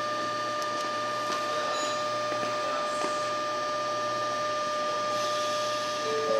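Steady electric hum of a Nankai 50000 series Rapi:t electric train standing at a platform: a constant tone with overtones over a low hum. Near the end a chime of xylophone-like notes starts.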